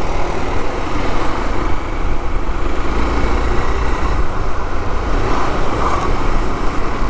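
Hero Xpulse's single-cylinder engine running steadily as the motorcycle rides along, under heavy wind rush on the rider's microphone.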